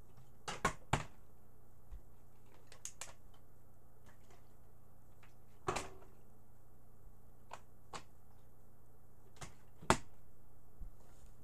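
A faint steady hum, with about ten scattered light knocks and clicks; the loudest come about a second in and again near the end.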